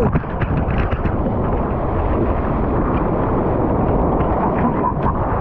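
Surf water rushing and splashing around a surfboard as it is paddled through broken waves, heard close up from the water's surface as a steady, dense rush.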